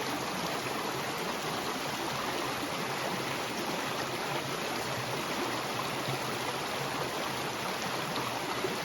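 Small mountain stream flowing steadily over rocks, an even rush of water.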